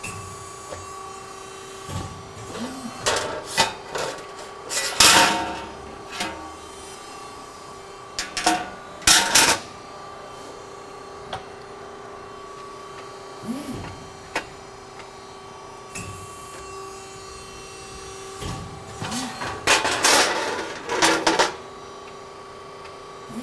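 Hydraulic CNC press brake bending an 11-gauge stainless steel channel: a steady hum from the running hydraulic pump, with several loud bursts of noise as the ram cycles through the bends and the sheet is worked against the back gauge, and a few short rising-and-falling hums in between.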